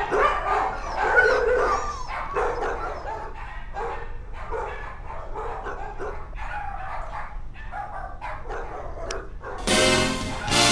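A dog vocalizing in a rapid string of short whines and barks, about two a second, some of them gliding up and down in pitch. A louder rushing sound cuts in near the end.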